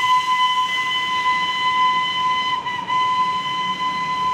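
Darjeeling Himalayan Railway toy train's locomotive whistle held in one long steady high note, wavering briefly twice, over the low rumble of the train running.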